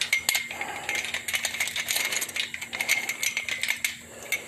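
A duck splashing and flapping in fresh water, a quick irregular run of splashes and spatters.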